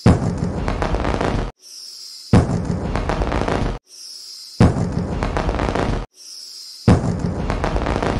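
An edited-in soundtrack loops about every 2.3 seconds. Each cycle is a high, slightly falling whistle, cut off by a sudden loud, bass-heavy stretch that lasts about a second and a half.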